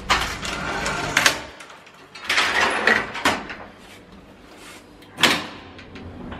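Doors of an old, small elevator being slid and pushed, with rattling and clattering, and one sharp bang about five seconds in.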